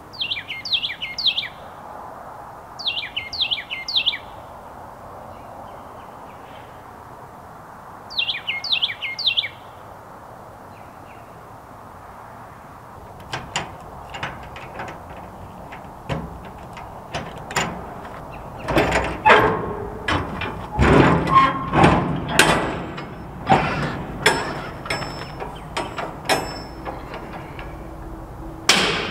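A bird chirps in short runs of three or four notes during the first ten seconds. Then come metal clanks as the locking bars of a steel shipping-container door are worked, followed by loud creaking, scraping and clanking as the heavy cargo door is pushed open on its hinges.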